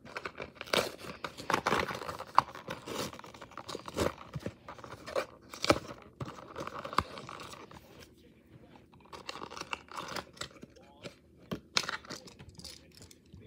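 Plastic blister pack and cardboard backing card crinkling, cracking and tearing as a die-cast toy car is pried out of its packaging by hand, in irregular bursts with a quieter stretch near the middle.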